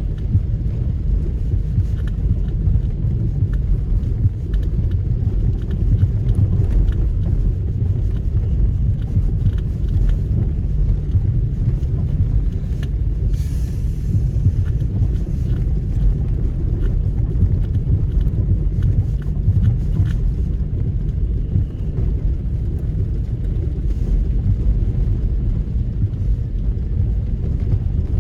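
Nissan X-Trail T30 with its 2.0 petrol engine driving off-road: a steady low rumble with scattered small knocks and rattles, and a brief hiss about halfway through.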